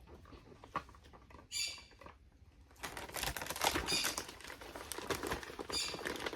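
Packaging being handled: a few light clicks, a short crinkle, then steady crackling and rustling of plastic wrapping from about three seconds in.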